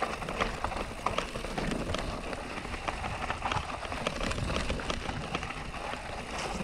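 Canyon Neuron mountain bike rolling downhill over a damp dirt and stone trail: a steady rush of tyre and wind noise with many short clicks and knocks as the bike rattles over stones and roots.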